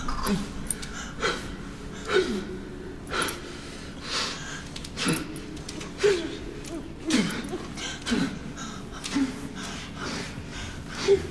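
A woman gasping for breath about once a second, each ragged gasp sliding down in pitch, over a steady low hum.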